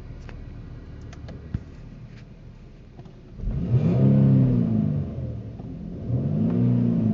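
A loud low buzz inside the cabin of a 2012 Infiniti G37x sedan, a noise the owner cannot identify. It comes twice, each time for a second or two, its pitch rising then falling, over a steady low hum.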